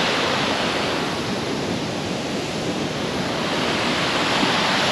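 Steady rushing of a broad, low waterfall spilling over rock ledges into a river pool. It gets a little softer midway, then fuller again.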